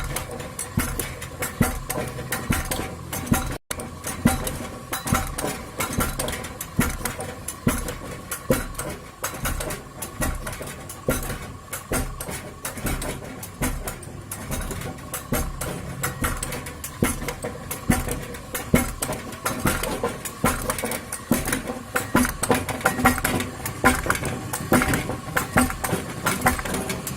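Homemade electric pounding machine running: a steady hum from the motor and reduction gearbox, with a rapid, uneven clatter of knocks from the pounding. The sound cuts out very briefly about three and a half seconds in.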